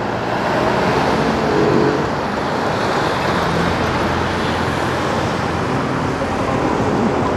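Steady road traffic noise from cars and buses moving along a busy multi-lane city avenue.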